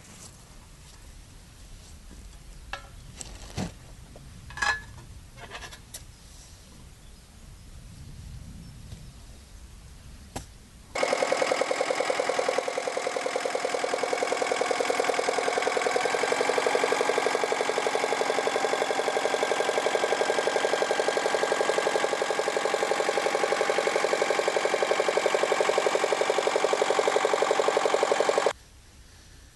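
A few faint knocks over quiet outdoor ambience, then a Yanmar 1100 tractor's engine cuts in suddenly, loud and steady, working the soil while ploughing. It stops abruptly near the end.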